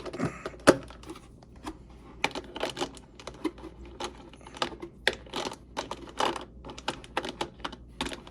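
Hard plastic parts of a 1/6 scale action figure clicking and tapping while being handled, as its swappable hands are worked on a tight wrist joint. The clicks come irregularly, several a second in places.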